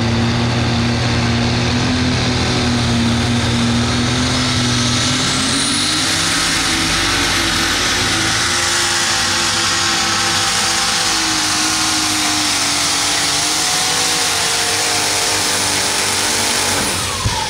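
Light super stock pulling tractor's alcohol-burning engine running flat out under load. Its pitch steps up about five seconds in and holds. It falls away sharply near the end as the run winds down.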